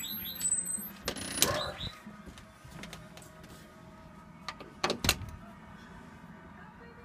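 New Year's fireworks or firecrackers going off: a scattering of sharp bangs and pops, the loudest about a second and a half in and again about five seconds in.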